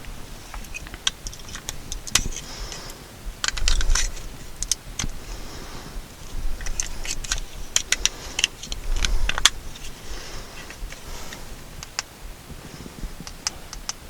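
Small plastic headlamp and its packaging being handled: scattered sharp clicks and short rustles, with a few brief busier spells of rattling.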